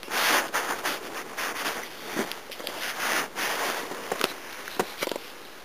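Sneakered footsteps pressing into deep fresh snow, about one step a second.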